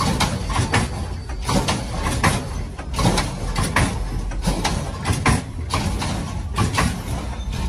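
Lowrider hydraulic suspensions hopping: irregular metallic clunks and clacks, several a second, as the cars' front ends are lifted and dropped, over a steady low rumble.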